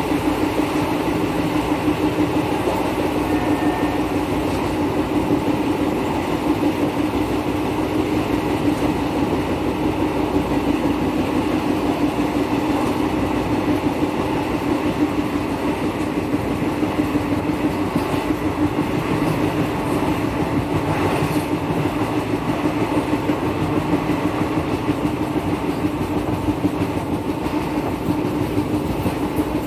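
Passenger train running steadily at speed, heard from an open carriage doorway: a continuous rumble and clatter of the wheels on the track.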